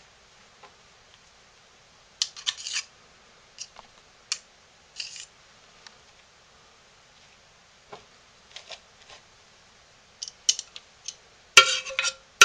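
Metal spoons scraping and clinking as thick hot-process soap is scooped from a crock-pot insert into a lined mold: scattered short scrapes with quiet gaps between, then a louder clatter of spoon against the crock near the end.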